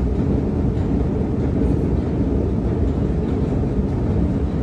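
Long metro-station escalator running, a steady low rumble heard from on the moving steps.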